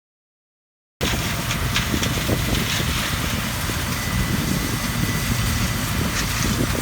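Silence, then about a second in a cut to a heavy farm machine's engine running steadily at full loudness, deep and even, with a faint thin whine above it.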